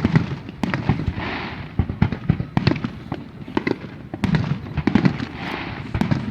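Fireworks display: a rapid, irregular run of bangs and booms, some sharp and some deep. A hissing spell about a second in and another near the end.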